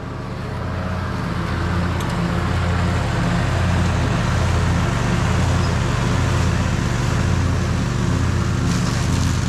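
Zero-turn lawn mower engine running steadily, fading in over the first couple of seconds.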